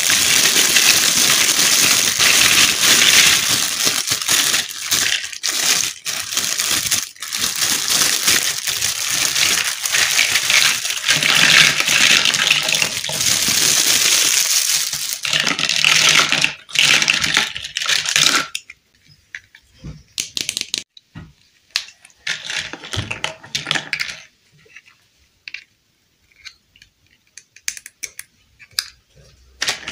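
Clear plastic bag crinkling and rustling as it is handled and opened, with hard pink plastic toy pieces rattling inside. About two-thirds of the way through the crinkling stops, giving way to scattered light clicks and taps of small hard plastic toy parts being handled and snapped together.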